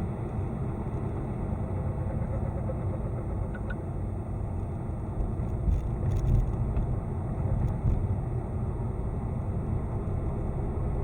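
A car running with a steady low rumble, swelling louder a few times between about five and eight seconds in. The owner is recording it for a hum under throttle and a knocking or rustling when the throttle is released.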